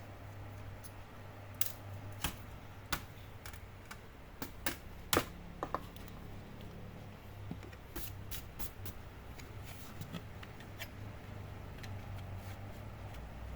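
Scattered sharp clicks and light taps of small plastic and metal laptop parts being handled as a hard drive is fitted into an optical-bay caddy, over a steady low hum.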